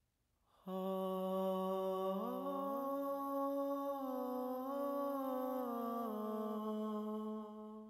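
Outro music after a brief silence: a sustained, hum-like low drone chord that slides up a step in overlapping glides about two seconds in, slides back down about six seconds in, and fades near the end.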